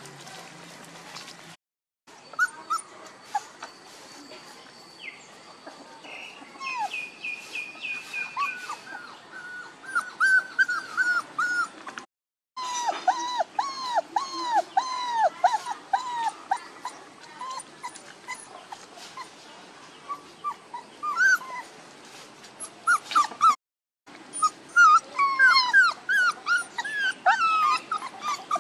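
Month-old puppies whining and whimpering: many short, high whines, each falling in pitch, coming in quick runs. The whining is broken by a few brief silences.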